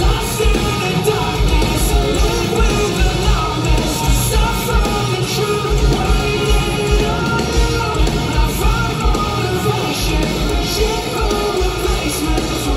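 Rock band playing live through a concert PA: electric guitars, bass and a steady kick-drum beat, with a singer's voice over the top, heard from within the crowd.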